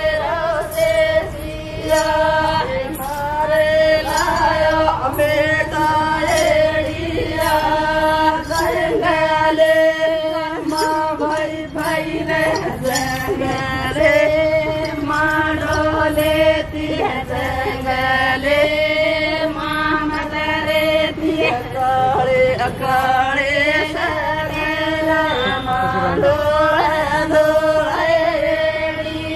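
A group of Lambada (Banjara) women singing a folk song together in chant-like unison, with hand claps keeping a steady beat for the dance.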